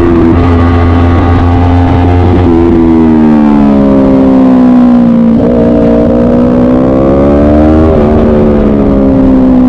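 Onboard engine of a track-day vehicle lapping a circuit: the revs jump about two and a half seconds in and then fall away under braking, climb again, and drop sharply at a gear change about eight seconds in.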